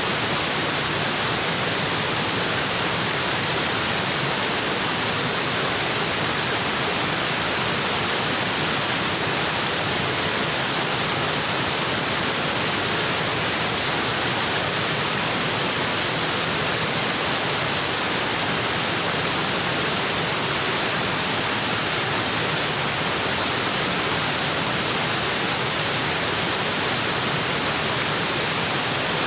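Waterfall pouring onto rocks: a steady, dense rush of falling water with no change.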